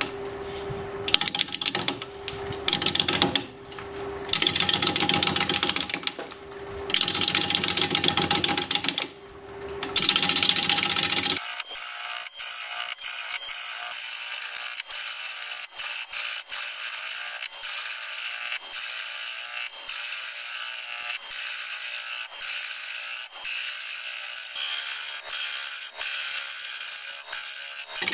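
Bowl gouge cutting a spinning blank of hard cherry plum on a wood lathe. For the first ten seconds or so it comes in bursts of cutting noise between passes over a steady motor hum. After an abrupt change about eleven seconds in, it turns thin and clattery with a steady run of ticks, as the gouge meets the still-uneven blank with its flat ends on an interrupted cut.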